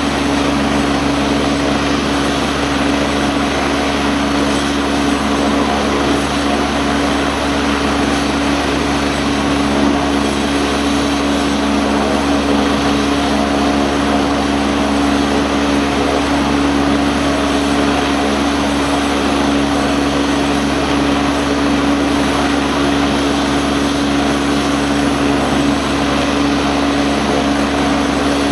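Royal New Zealand Air Force AgustaWestland A109 helicopter running on the ground, its turbine engines and main rotor turning at a steady pitch before lift-off. A loud, unchanging whine and rotor hum.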